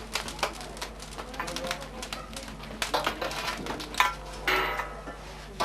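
Irregular taps, knocks and clatter of hand work in a bread-making room, with a louder knock about four seconds in.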